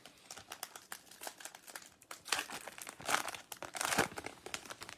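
A 2020 Topps Stadium Club Chrome trading-card pack wrapper being torn open and crinkled by hand. Irregular crackling runs throughout, with louder rustles about two, three and four seconds in.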